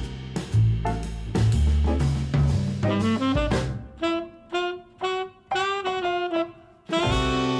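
Background jazz music with saxophone and drums over a bass line. From about four seconds in the bass and drums drop away for a run of short, clipped notes, then the full band comes back in near the end.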